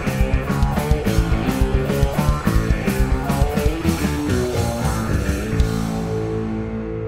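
Rock band playing live: drum kit, electric guitars and bass in a fast, driving instrumental passage. About five and a half seconds in, the drums stop and held guitar notes ring on.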